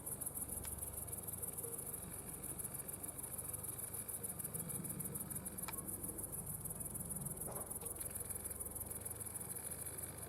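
Insects chirring: a steady, high-pitched, rapidly pulsing trill, with a few faint clicks.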